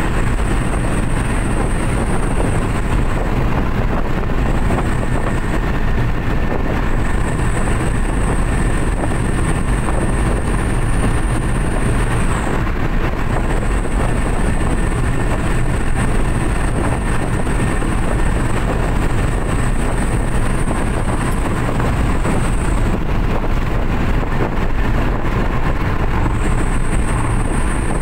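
Steady cabin noise of a loaded Suzuki New Carry pickup at motorway speed: engine drone, tyre and wind noise heavy in the lows. A faint high whine comes and goes every few seconds.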